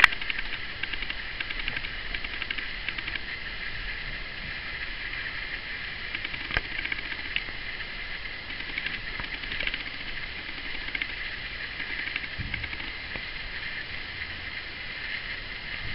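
Steady high hiss of background room noise with scattered faint clicks, one sharper click partway through and a brief low thump later.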